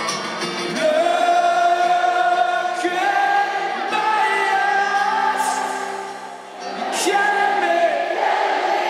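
Live rock concert in an arena, recorded from the audience: a song with acoustic guitar, sung in long held notes by the singer and a large crowd singing along. The sound briefly drops away about six seconds in, then the singing resumes.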